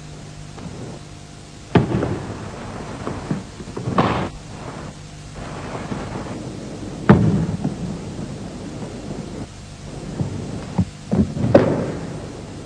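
About half a dozen heavy thuds on a wooden gym floor, the loudest about two and seven seconds in and three close together near the end, from a bajiquan partner being thrown down and feet striking the floor. A low steady hum lies underneath.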